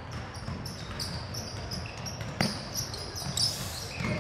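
A basketball bouncing on a hardwood court during play, with a couple of sharp bounces over steady background noise and brief squeaks near the end.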